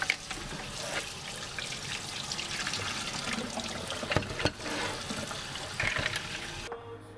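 Kitchen tap running into a bowl of mussels in a stainless steel sink while hands rinse and rub them, the shells clacking now and then against each other and the bowl. The running water stops near the end.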